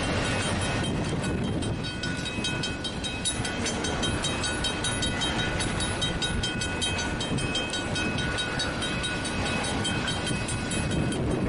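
Freight train of tank cars rolling past close by: a steady rumble of the cars with rapid clicking from the wheels, and a thin high tone over it.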